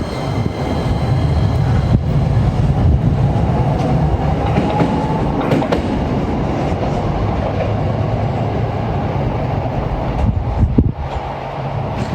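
A Toden Arakawa Line tram passing close by on street-level track: a steady heavy rumble of the car running, with a faint whine that rises around the middle and a few sharp clicks of wheels over the rail joints near the end.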